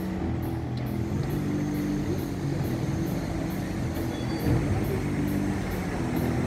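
Street traffic: a motor vehicle's engine running steadily close by, over the general hum of city road noise.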